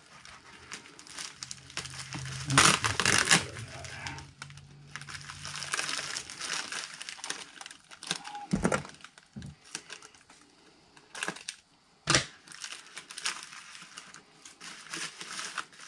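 Packing tape pulled off its roll with a loud rasp about three seconds in, then pressed down along the side of a padded mailer, the mailer crinkling as it is handled. Two sharp knocks on the desk come later, about four seconds apart. The tape reinforces a seam that tends to split.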